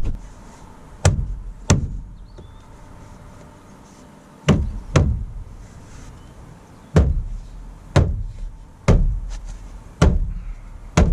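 A car door trim panel being knocked into place by hand, seating its plastic clips in the door: a series of about nine sharp knocks at uneven intervals.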